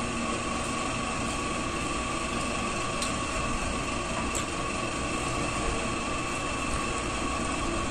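A steady mechanical hum carrying a couple of faint high tones, with two faint clicks partway through.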